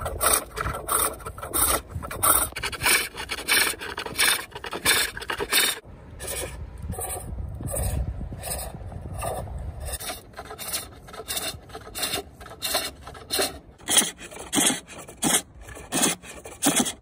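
Hook turning tool cutting the inside of a wooden bowl spinning on a foot-powered pole lathe: a rhythmic rasping scrape about twice a second, one cut on each downstroke of the treadle as the work turns back and forth. About six seconds in the strokes turn fainter over a low rumble, then come strong again for the last few seconds.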